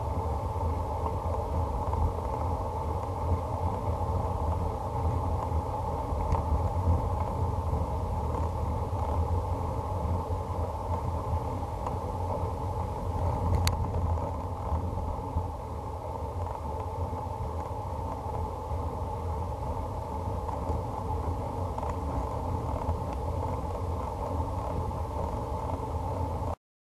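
Steady wind rumble on a bike-mounted action camera's microphone, with tyre and road noise from riding, cutting off abruptly near the end.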